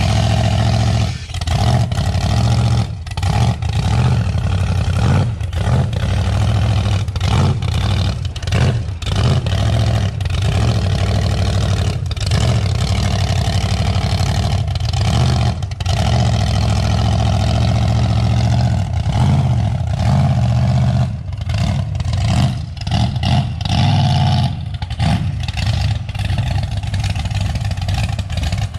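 Mud truck's 383 stroker small-block Chevy V8 running hard under load, pulling a heavy gooseneck trailer. The engine revs with brief dips in its sound again and again.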